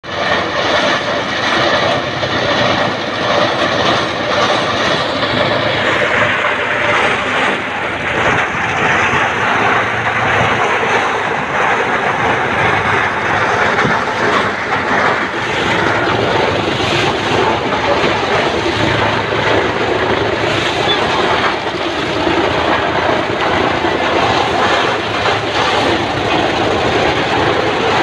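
Tractor-driven chaff cutter running under load as dry maize stalks are fed in by hand, its blades chopping them and blowing the chaff up the delivery pipe, with the tractor engine running beneath. The sound is loud and steady throughout.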